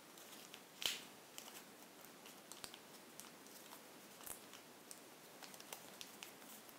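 Faint crinkling and ticking of origami paper being opened and reverse-folded by hand, with a louder crackle about a second in.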